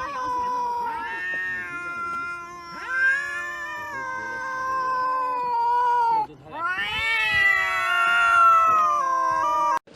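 A cat yowling in long, drawn-out wavering calls. One yowl lasts about six seconds; after a brief break a second, rising yowl holds until it cuts off suddenly near the end.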